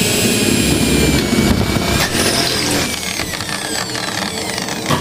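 Corded electric drill running at full speed, drilling a hole through galvanized steel metal stud for a blind rivet. Its steady motor whine eases off about two seconds in and winds down, with a click near the end.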